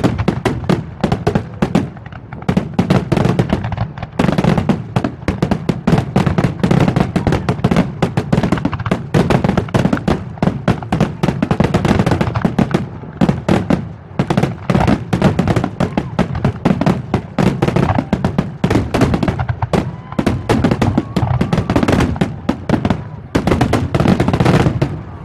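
Fireworks display going off in a dense, continuous barrage of rapid bangs and crackles over a deep rumble, with no letup.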